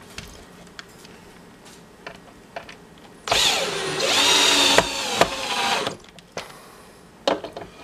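DeWalt cordless drill running for about two and a half seconds from a little over three seconds in. Its motor whine rises as it speeds up, then cuts off. Light handling clicks come before and after.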